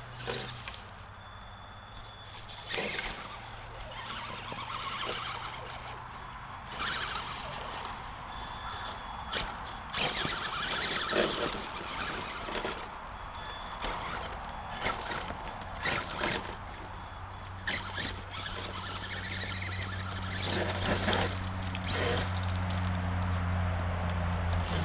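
Axial SCX-10 electric scale RC crawler driving over grass and up a loose dirt and rock slope. Its tires scrabble and crunch on dirt and stones in irregular spurts, and a steady low hum grows louder in the second half.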